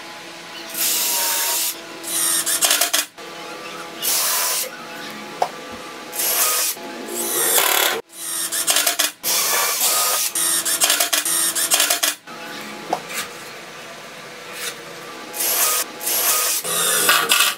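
A cordless drill boring pilot holes into plywood in short bursts, each under a second, then a cordless impact driver driving screws in a quick run of bursts. Near the end the drill bores again.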